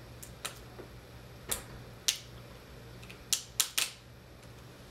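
Short, sharp crackles of adhesive tape being peeled off the back of a laptop LCD panel, about seven of them at irregular intervals. The loudest come about two seconds in and again just past three seconds.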